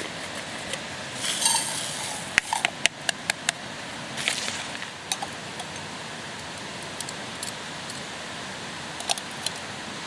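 Metal camp cookware being handled: a run of sharp clinks and taps, with two brief scraping rattles, over a steady outdoor hiss.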